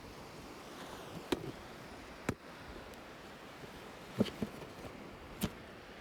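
Five sharp clicks and taps of small plastic toy pieces and packaging being handled, spaced irregularly, over a steady background hiss.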